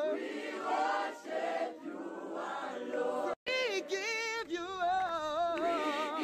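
Background music with singing, the voice holding long, wavering notes. It drops out for an instant about halfway through.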